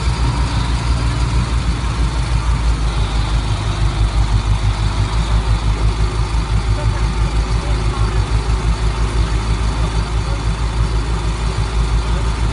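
A motor vehicle's engine running steadily, a loud, low rumble with a fast flutter to it, as picked up by a phone camera.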